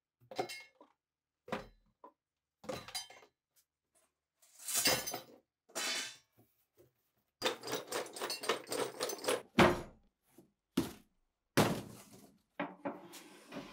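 Brushes, a spray can and other tools dropped and set down into a cardboard box: a series of separate thuds and clatters. A busier stretch of rattling comes a little past the middle, then a few sharper knocks near the end.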